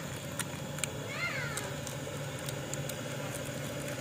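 A cat meows once about a second in, a short call that rises and falls in pitch. Faint clicks of the plastic light packaging being handled and a steady low hum sit underneath.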